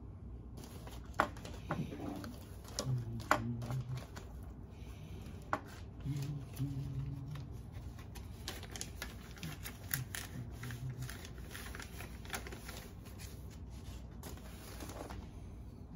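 Paper or plastic parts packaging crinkling and rustling in the hands, with small clicks and taps, stopping shortly before the end.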